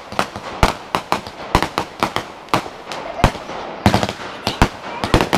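Consumer fireworks going off in quick succession: irregular sharp bangs of bursting shells, about three a second, over a steady noisy rush between them.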